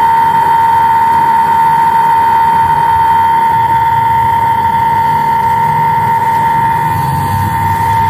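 Small battery-powered honey suction pump running with a steady high whine as its tube draws honey from the stingless bees' honey pots.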